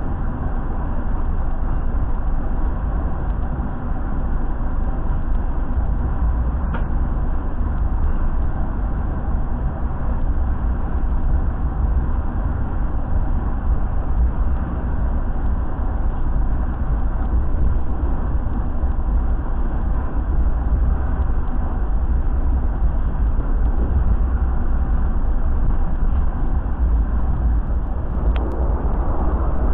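Steady low rumble of a passenger train coach in motion, heard from inside the carriage.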